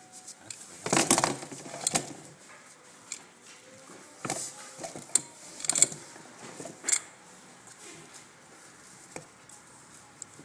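Handling noise from a small hard object: irregular clicks, knocks and short rattles, with the longest scrape about a second in and sharp knocks near 6 and 7 seconds, then only faint clicks.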